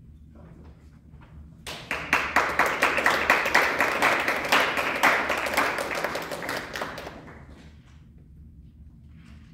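Audience applauding, starting about two seconds in and dying away after about five seconds.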